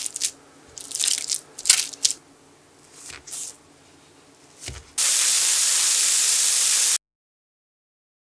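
A metal potato masher squishing through steamed sweet potato in several short bursts, then a plastic dough scraper cutting sweet potato dough with a soft knock on a wooden board. About five seconds in comes a loud, steady hiss lasting two seconds that cuts off abruptly into silence.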